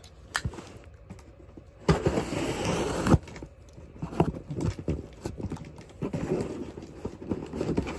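Handling noise as hands work with objects close to the microphone: scattered knocks and taps, with a loud rustle about two seconds in that lasts about a second.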